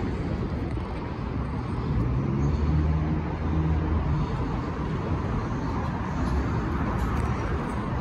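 Steady city street traffic noise. A low engine-like hum swells for about two seconds, starting about two seconds in.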